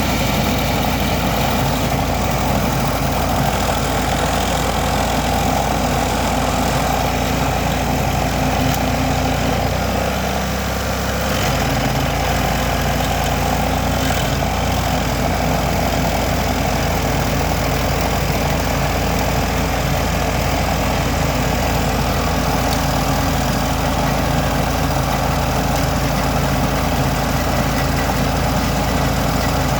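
Vermeer SC382 stump grinder's 37 hp engine running steadily, with a brief dip in level about ten seconds in.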